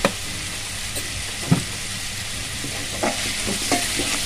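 Chopped onions, tomatoes and chillies sizzling in oil in a metal pan. A steel spoon knocks sharply against the pan twice. From about three seconds in it scrapes and clinks against the pan as the vegetables are stirred.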